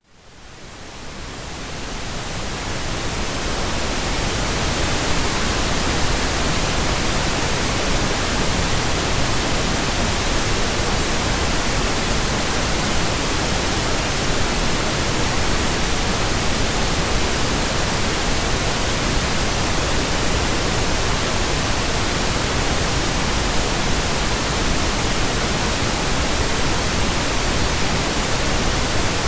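Synthesized pink noise: an even, steady hiss with no tones or rhythm, fading in from silence over the first three seconds or so.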